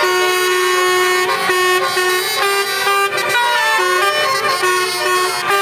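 Basuri telolet horn, a set of musical air-horn trumpets, playing a tune: several horn tones sound together and step from note to note without a break.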